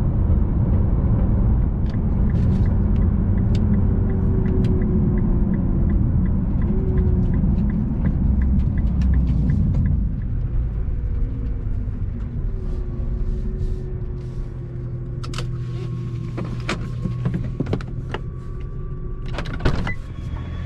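Nissan GT-R on new Michelin Pilot Sport 4S tyres driving on the road: a steady low tyre and engine rumble, loud for the first half, then easing to a lower hum with gliding engine tones as the car slows. A run of quick, even ticks comes early on, and several sharp clicks and knocks come near the end.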